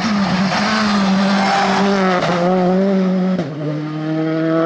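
Rally car engine at full throttle, with the pitch stepping down at upshifts about halfway through and again near the three-quarter mark.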